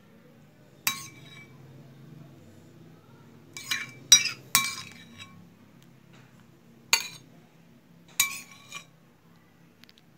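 A metal spoon clinking against a dish about seven times, singly and in quick pairs, each strike leaving a short ring, as garlic yogurt is spooned out and spread over the food.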